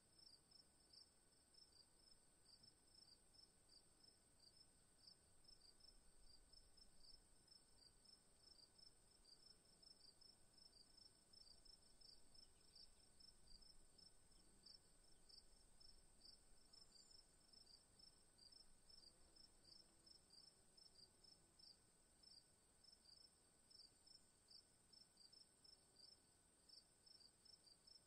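Near silence: a faint, high chirping repeating evenly about three times a second over a steady high tone, unchanged throughout.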